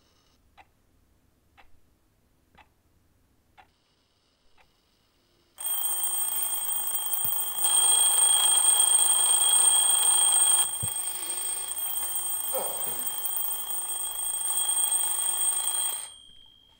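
Twin-bell mechanical alarm clock ticking about once a second, then ringing loudly and continuously as its hammer rattles between the two bells from about five and a half seconds in. The ring cuts off suddenly near the end as a hand silences the clock.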